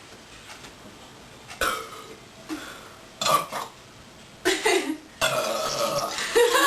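Girls burping in a contest: a series of short burps starting about a second and a half in, then a long drawn-out burp near the end.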